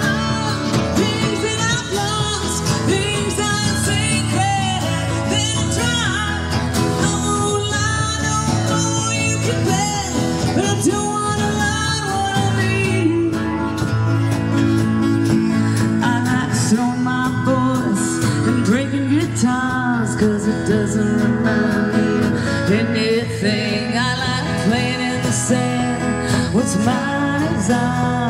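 Live country music from a band of acoustic guitars strumming and picking, with a singer.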